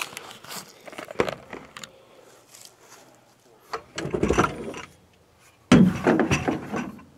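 Clattering and scraping of gear being handled by hand, in scattered clicks with two louder bursts of bumping about four and six seconds in.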